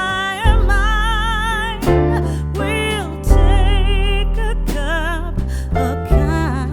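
Background song: a singing voice with vibrato over sustained bass and instrument notes.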